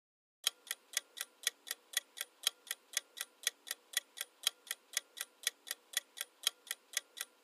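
Clock-style tick-tock sound effect of a quiz countdown timer. The ticks run evenly at about four a second, alternately louder and softer, starting about half a second in.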